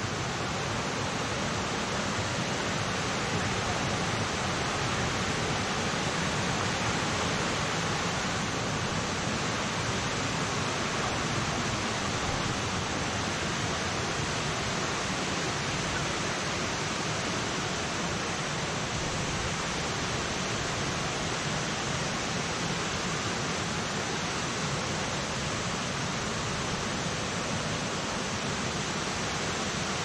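Kuang Si Falls cascading over low limestone ledges into pools: a steady rushing of water.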